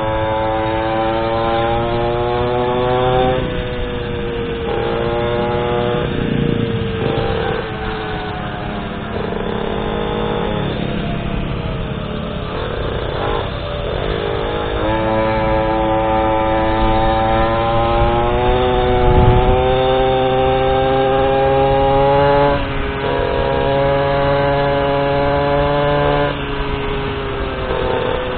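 Small 50cc goped engine under way, its pitch climbing under throttle and dropping back several times as the rider eases off, over steady road and wind noise.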